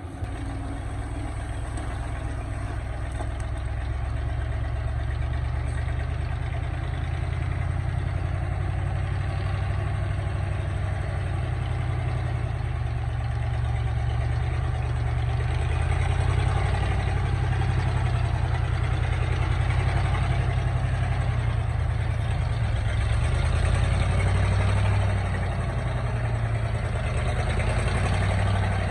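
Excavator's diesel engine running steadily. It builds over the first few seconds and swells slightly a couple of times, as it would under working load.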